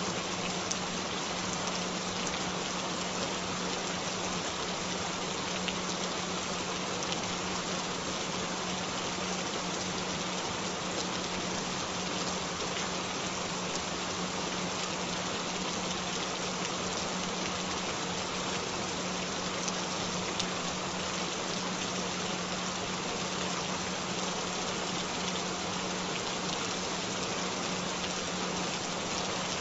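Steady rainfall with a steady low tone held underneath it, a binaural-beat frequency mixed into the rain for headphone listening.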